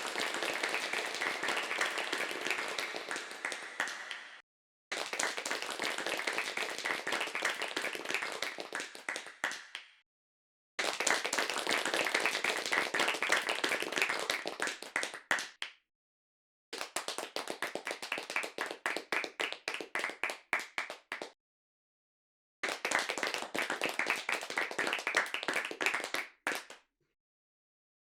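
Hand clapping in five separate takes, each lasting about four to five seconds and separated by a second of silence. In the last two takes the single claps stand out more clearly.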